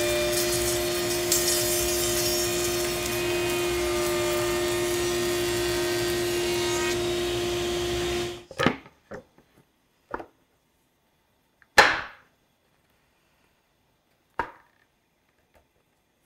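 Router in a router table running steadily while a wooden test board is fed past the cutter, machining a tongue along its edge. The machine sound cuts off suddenly about eight seconds in, and a few sharp knocks of the board being handled on the metal table follow, the loudest about twelve seconds in.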